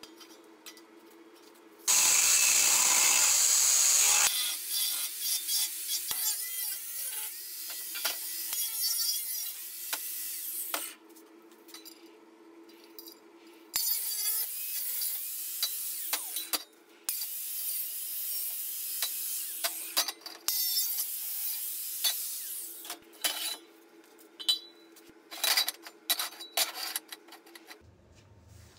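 Angle grinder cutting and grinding square steel tubing in several separate runs, the loudest a very loud two-second burst about two seconds in, with quieter scraping and handling between runs.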